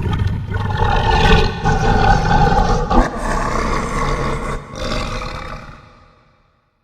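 Dinosaur roar sound effect for a Yutyrannus: one long, rough, pitched roar of about six seconds that dips briefly near the end, swells again and then fades out.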